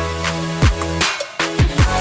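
Background electronic hip-hop music with a steady beat of deep kick drums that slide down in pitch over held bass notes. The music dips out briefly about a second in.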